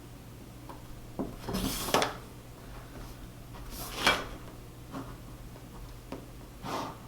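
Pencil and drafting tools rubbing and sliding across paper on a drafting board: several short scraping strokes, each about half a second, spaced a second or two apart.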